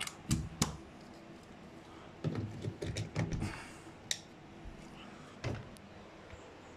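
Plastic clicks and knocks of a mains plug and its leads being handled and pushed into a wall socket: two sharp clicks near the start, a busy cluster of knocks in the middle, then single clicks.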